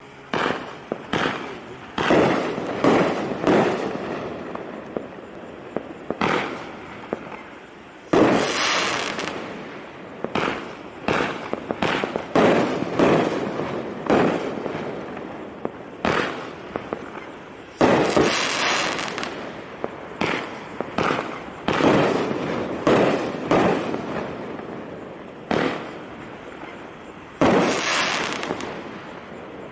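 'Dancing Dolphins' consumer aerial firework going off shot after shot: sharp bangs of launches and bursts about every one to two seconds. Several bursts trail off in a crackling fizz lasting about a second.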